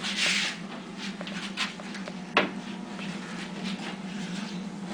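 Handling noises from a treadle sewing machine being set up: a short rustle, then a few light clicks and one sharper knock about two and a half seconds in.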